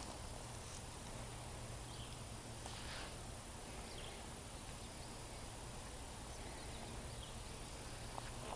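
Quiet outdoor ambience: a low steady rumble with a few faint, short chirps.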